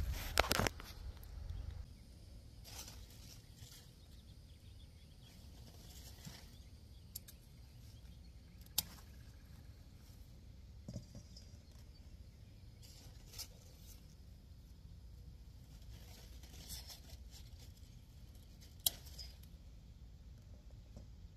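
Cucumber vines and leaves being handled while cucumbers are picked: faint rustling with scattered sharp snaps and clicks. The loudest crackle comes in the first second, and two sharper clicks follow much later.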